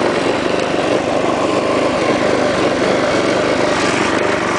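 Small lawnmower engine running steadily on a homemade ride-on mower, with no change in speed.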